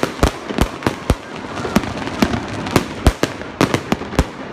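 Fireworks shells bursting overhead: about a dozen sharp bangs at irregular intervals, some in quick pairs, over a steady background noise.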